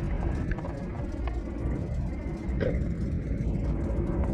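Car driving along a road: steady low engine and tyre rumble heard from inside the car, with a few faint ticks.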